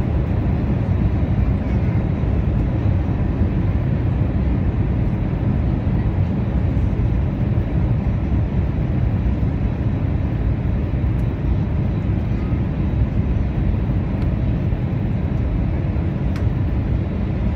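Steady cabin noise of an Airbus A320 airliner on descent, heard from a window seat: a loud, even rumble of engines and airflow, with a faint steady tone above it.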